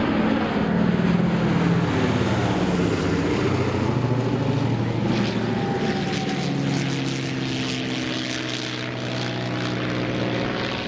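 Boeing B-17 Flying Fortress's four Wright Cyclone radial engines running as the bomber passes overhead. The engine note drops in pitch as it goes by, then eases a little as it flies away.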